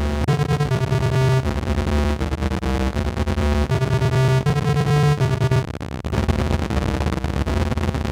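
Waldorf Microwave wavetable synthesizer playing a user-made wavetable sound: a phrase of sustained notes rich in overtones over a low bass part, the notes changing about every half second to a second.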